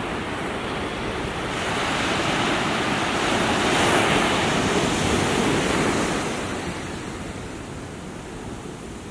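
Small waves breaking on a shore. One wash swells up a second or two in, is loudest around four seconds, then draws back and fades.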